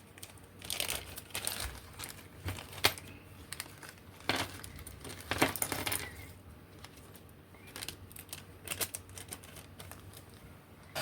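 Plastic bag of small kit parts being handled, crinkling in several irregular bursts, with a sharp click a little before 3 seconds in.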